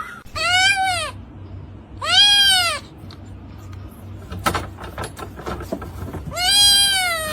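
A cat meowing three times, each meow long and loud and rising then falling in pitch, with a pause before the last one.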